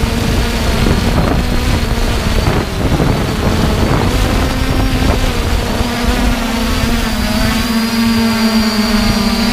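3DR Iris+ quadcopter's electric motors and propellers buzzing steadily in flight, heard close from the drone's own camera microphone, with wind rumbling on the microphone. The buzz rises slightly in pitch about halfway through.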